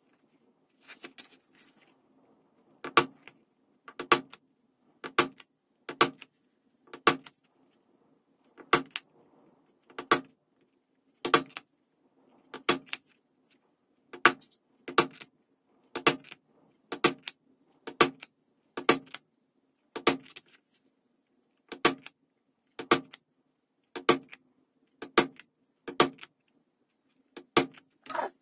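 A mallet striking a stitching chisel to punch stitching holes through vegetable-tanned leather, in sharp knocks about once a second, after a few faint clicks at the start.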